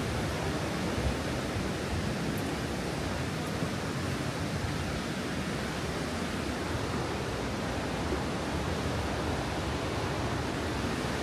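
Steady rushing outdoor noise, even and without distinct events.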